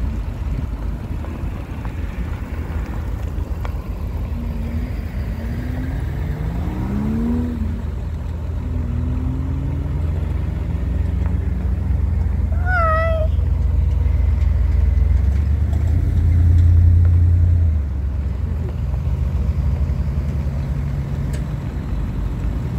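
Ford F-series pickup truck engines running as the trucks drive past one after another, a low rumble that rises in pitch as one revs up about five to eight seconds in and is loudest about sixteen seconds in. A brief wavering high-pitched call about thirteen seconds in.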